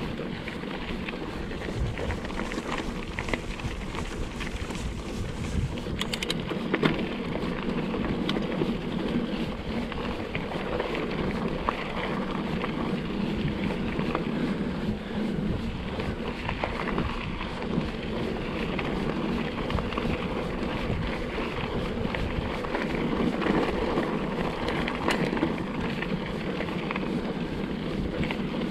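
Mountain bike riding downhill over a rough trail: steady tyre rumble with frequent small knocks and rattles from the bike, and wind on the microphone.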